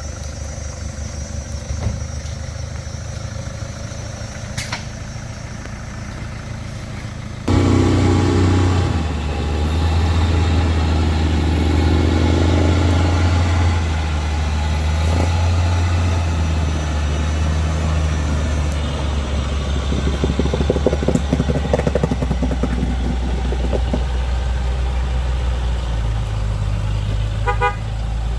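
Off-road 4x4 engine running with a steady low rumble, jumping suddenly louder about seven seconds in. A few short beeps sound near the end.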